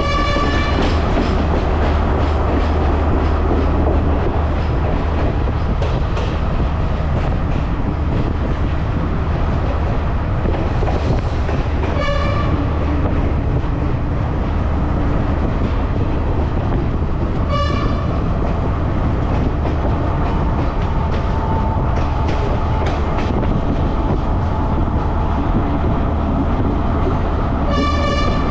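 Passenger train running along the line: a steady heavy rumble with faint rail clicks. The train's horn sounds brief toots: one ending just as the sound opens, then about 12 seconds in, about 18 seconds in, and near the end.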